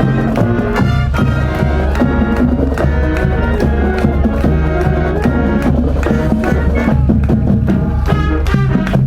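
High school wind band playing live: brass over a steady drum beat with a sustained low bass line.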